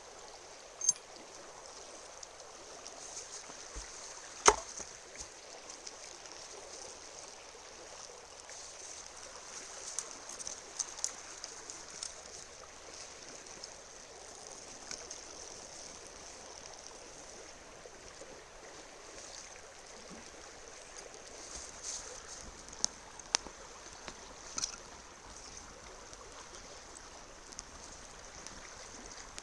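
Steady rush of flowing river water, with scattered sharp clicks and knocks over it; the loudest knock is about four and a half seconds in.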